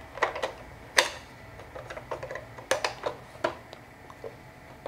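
Irregular, sharp plastic clicks and knocks from hands working on the upturned underside of a Xiaomi robot vacuum mop during a battery swap, the loudest about a second in.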